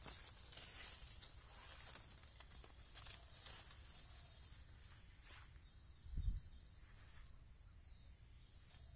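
Grass blades and leafy stalks brushing and rustling against the phone as it pushes through dense vegetation, in repeated short swishes, over a steady high insect drone. A dull bump on the phone about six seconds in.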